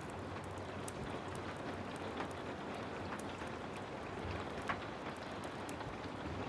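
Heavy rain falling steadily, mixed with many small crackles and pops from a fireplace fire, one pop standing out about four and a half seconds in.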